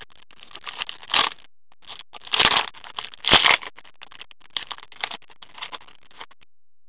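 Foil trading-card pack wrapper crinkling and tearing as it is ripped open by hand: a run of crackly rustles, with two louder tearing bursts in the middle.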